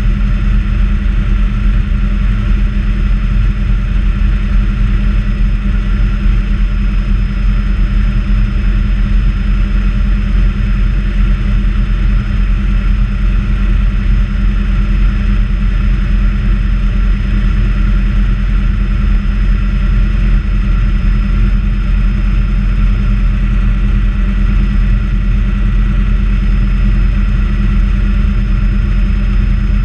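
Bell 206A JetRanger helicopter heard from inside the cabin in flight: a steady, loud drone of the main rotor, transmission and Allison 250 turboshaft engine. A thin, steady whine sits above it.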